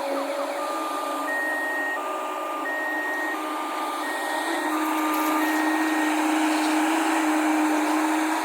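Heavy diesel vehicle running with a two-tone electronic warning alarm alternating high and low beeps for about five seconds, typical of a reversing alarm. About halfway through, the engine note rises and stays up.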